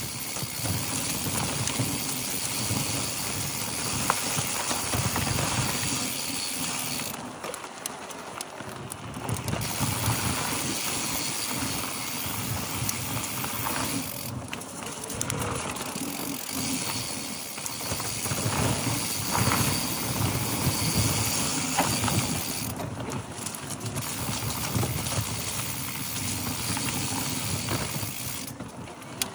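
Mountain bike ridden down a dry dirt trail: knobby tyres rolling and crunching over dirt and fallen leaves, with the bike knocking and rattling over bumps under a steady rushing noise.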